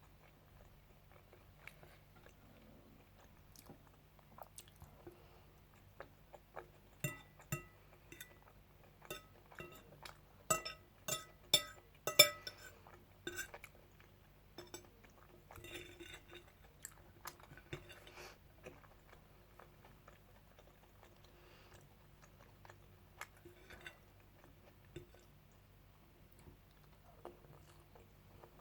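A person chewing and eating a meal close to the microphone, with quiet mouth sounds. Sharp clicks and clinks, some ringing like cutlery on a plate, come in a busy run about a third of the way in.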